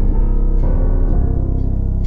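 Background music with a deep bass and notes changing about every half second.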